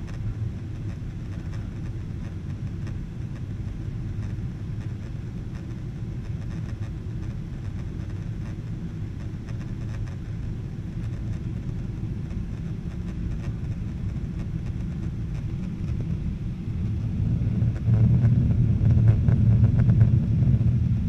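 Jet airliner cabin noise in flight: a steady low rumble of engines and airflow, growing louder near the end.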